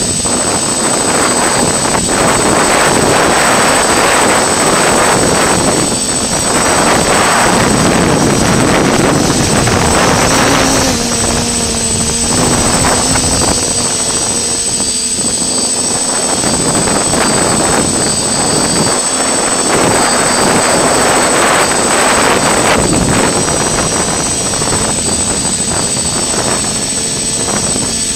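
FPV quadcopter's electric motors and propellers running in flight, a loud continuous buzzing whine whose pitch and strength shift as the throttle changes, mixed with wind rushing over the onboard microphone.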